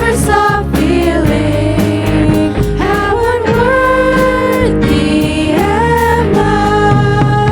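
Music of a Christian worship song: a sung melody with long held notes over a steady bass line and a regular percussion beat.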